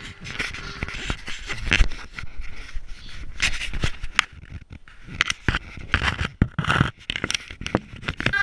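Handling noise from a small camera being moved about and set into a model yacht's hull: irregular scrapes, knocks and bumps against the hull.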